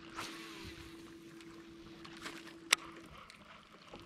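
Quiet sounds aboard a bass boat: a faint steady hum that stops about three seconds in, and a single sharp click a little before it stops.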